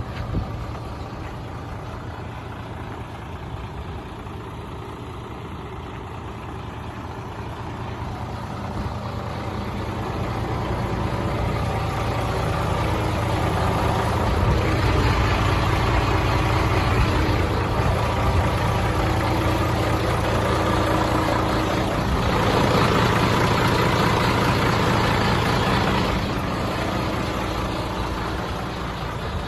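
The 1995 Hino Ranger dump truck's J08C inline-six diesel engine running steadily. It grows louder about ten seconds in and eases back down near the end.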